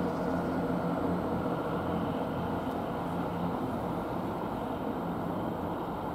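Diesel trains running: a Class 166 Turbo diesel multiple unit pulling away with its underfloor engines humming, while an HST with a Class 43 power car approaches on the adjacent line. A steady engine drone with rail noise that eases off slightly.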